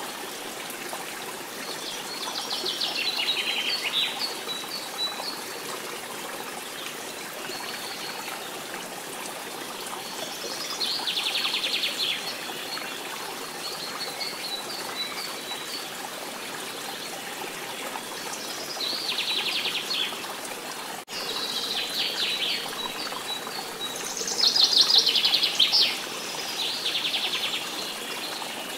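Small birds singing short, rapid trilled phrases every few seconds over a steady trickle of running water. The loudest phrases come near the end, and the sound drops out for an instant about two-thirds of the way through.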